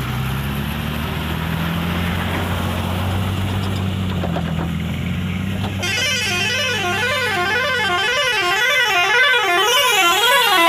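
Heavy multi-axle tipper truck's diesel engine running steadily as the truck pulls away. About six seconds in, a vehicle horn starts sounding a warbling tone that rises and falls about twice a second, louder than the engine.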